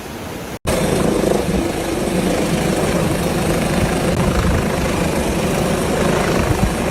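Helicopter running: a loud, steady drone that starts abruptly about half a second in.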